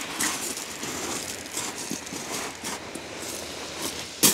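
Steady wash of small waves on a shingle beach with wind on the microphone, and one sharp click about four seconds in.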